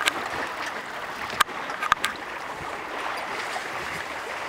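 Water rushing and lapping along the hull of a sailboat under way, a steady splashing hiss with a few short sharp knocks about one and a half and two seconds in.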